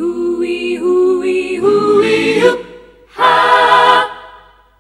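A short a cappella jingle sung by several voices in harmony, closing on a loud held chord about three seconds in that dies away just before the end.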